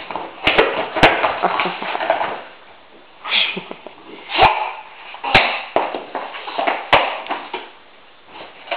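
Scuffling, broken by about five sharp taps and knocks spread through, with quieter spells in between.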